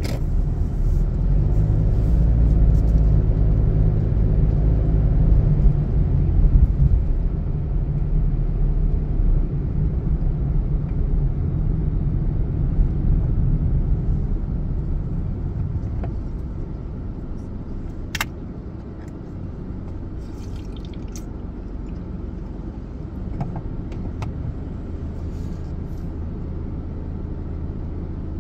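Car on the move, heard from inside the cabin through a dashcam microphone: a steady low engine and road rumble. It is louder for the first half and eases off after about eighteen seconds, just after a single sharp click.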